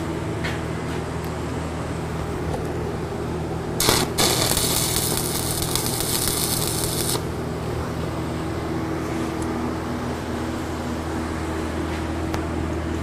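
Stick arc welding: the arc is struck about four seconds in and burns a tack weld on steel for about three seconds with a harsh crackling hiss, then stops suddenly. A steady electrical hum runs underneath throughout.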